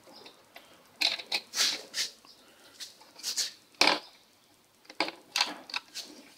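Irregular clicks and short rattles of bolts being undone and plastic parts being handled on a Honda CRF250L's rear tail section, with one sharper knock near the middle.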